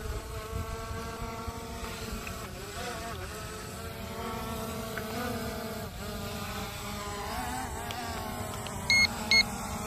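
Small quadcopter drone hovering, its motors and propellers giving a steady buzzing whine whose pitch wavers as it holds and shifts position. Near the end come two short, high electronic beeps about half a second apart, louder than the drone itself.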